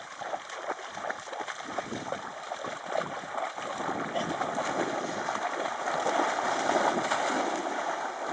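Dogs, German shepherds among them, splashing as they run through shallow lake water. The splashing gets louder and denser in the second half as they charge out into deeper water.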